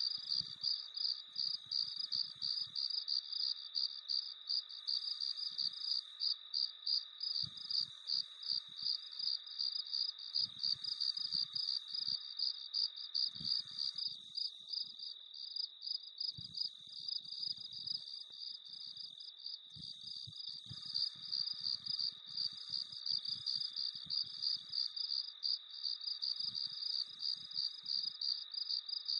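Crickets chirping in a steady, rapid rhythm of high-pitched pulses, with a fainter, lower insect trill underneath that drops out for a few seconds about halfway through.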